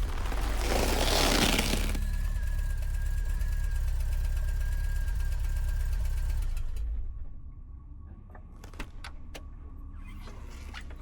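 Volkswagen Vanagon camper van's engine running with a low rumble and a faint steady whine, dying away about seven seconds in; a few sharp clicks follow.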